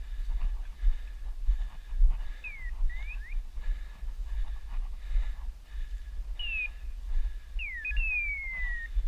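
Short whistled calls, clear and sliding: a falling then rising pair, a short falling note, and near the end a quick rise followed by a long falling whistle. Underneath runs low wind rumble and the rustle of walking through scrub.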